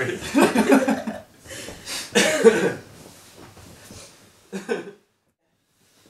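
A few people laughing with a cough, in two loud bursts over the first three seconds and a short one near five seconds, then the sound cuts off suddenly.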